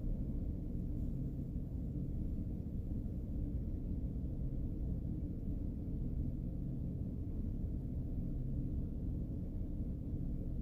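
The 3.7-litre V6 of a 2006 Jeep Grand Cherokee runs steadily and evenly, with a low hum. The owner is trying to trace an unidentified engine rattle in this engine.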